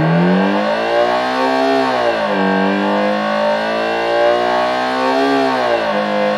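Homemade electronic engine-sound generator imitating a Subaru WRX STI's EJ20 flat-four with equal-length exhaust, run at high revs with a racing-car tone. The pitch climbs and holds near the top, drops sharply about two seconds in, climbs again slowly and drops once more near the end.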